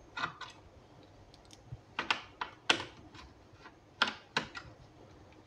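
Light, irregular clicks and taps of a screwdriver and fingers on the plastic base of a laptop being taken apart, about seven in all with pauses between them.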